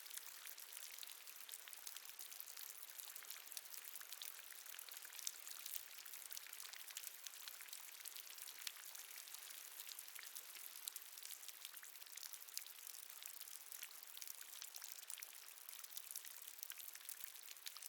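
Water dripping in a cave: many small drops pattering over a steady high hiss.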